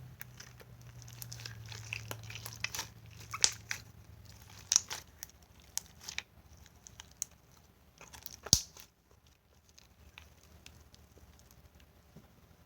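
Hands kneading and squishing putty, giving irregular sticky crackles and sharp popping clicks; the loudest snap comes about eight and a half seconds in, and the sounds thin out after that.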